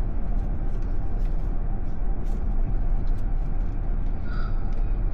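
Steady low rumble of a car's tyres and road noise on a wet road, with faint scattered ticks.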